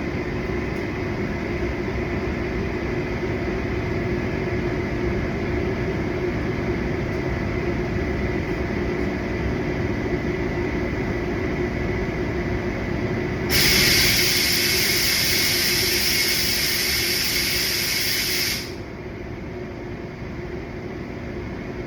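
Steady low hum of air-conditioning or ventilation. About two-thirds of the way through, a loud hiss starts, runs for about five seconds and cuts off suddenly, after which the hum is quieter.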